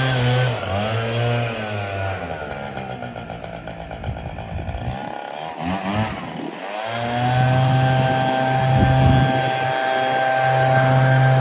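Gas backpack leaf blower's small engine running while blowing grass clippings off pavement. The engine eases off to a lower, wavering pitch about half a second in. Around seven seconds in it is throttled back up to a steady high whine.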